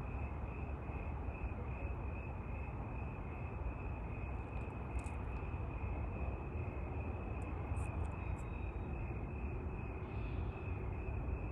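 Outdoor night ambience: a steady low rumble, with insects chirping in an even, pulsing rhythm of about three chirps a second.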